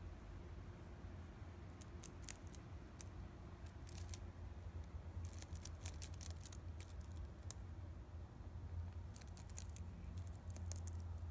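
Faint, crisp clicks in irregular clusters, a rabbit nibbling at a woven hay wreath, over a low steady hum.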